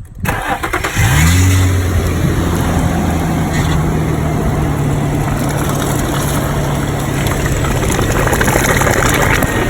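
Vehicle engine cranked and started: it catches about a second in with a brief flare, then idles steadily under a loud rushing noise. It is running so the power steering pump pushes the old fluid out during a flush.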